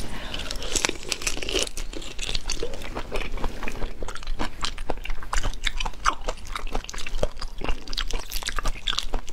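Wet biting and chewing of raw soy-and-chili-marinated black tiger prawns, with many small crackles and clicks as the prawn shells are bitten and pulled apart by hand.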